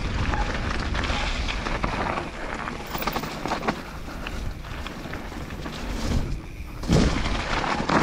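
Downhill mountain bike on a dirt trail: wind rushing over the camera microphone, tyres on the dirt and the bike rattling, with a louder knock about seven seconds in.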